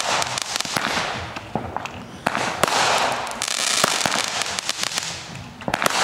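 Consumer aerial fireworks bursting overhead: a rapid string of sharp pops and crackles over repeated hissing swells as the sparkling stars burn.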